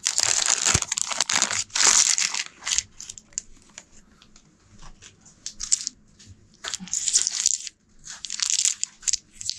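Thin plastic bag crinkling as it is opened and handled, loudest over the first three seconds and again near the end, with light clicks of the plastic game chips inside shifting against each other.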